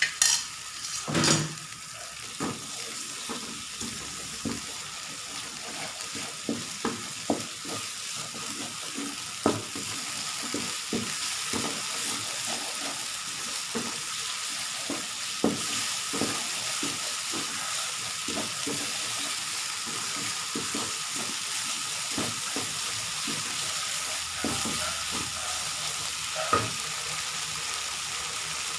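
Spice paste for a curry sizzling in a pan with a little water, stirred with a utensil that clicks and scrapes against the pan now and then. Two louder knocks come right at the start.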